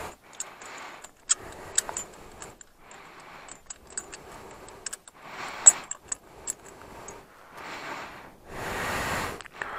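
Small metal parts clinking and rattling as they are handled, in a string of sharp little clicks, with short patches of soft rustling noise between them; the loudest rustle comes near the end.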